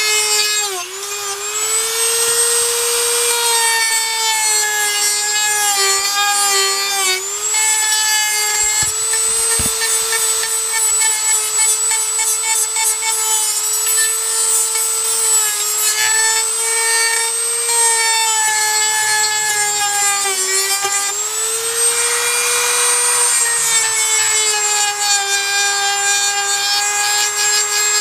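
Small high-speed electric power tool running continuously as it cuts and shaves down the dash opening to fit a double-DIN stereo. It gives a steady high whine whose pitch sags briefly each time it bites into the material, several times over.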